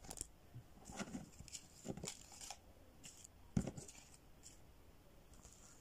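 Rustling and crinkling of Kenyan shilling banknotes and the binder's clear envelope pockets being handled, heard as a scattered series of short, faint rustles and clicks, the loudest about three and a half seconds in.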